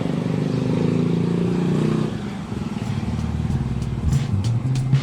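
Motor vehicle engine running, dipping in loudness about two seconds in.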